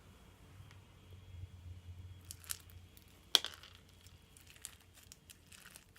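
Faint crinkling and scattered clicks, with one sharper click a little past halfway.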